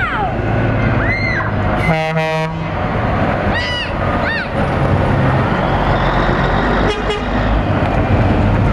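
Peterbilt truck's air horn giving one short blast about two seconds in, over the steady low rumble of its diesel engine as it pulls past. A few short rising-and-falling whooping calls sound before and after the blast.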